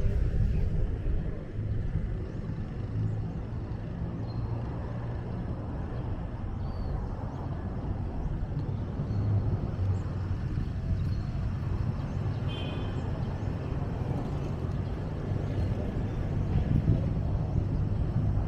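Outdoor background noise: a steady low rumble with a few faint high chirps.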